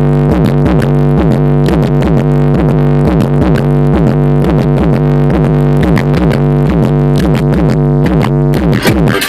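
Bass-heavy electronic music played loud through two 10-inch Alpine Type S subwoofers in a ported box tuned to 40 Hz: a steady deep bass under fast, repeating sweeping synth notes.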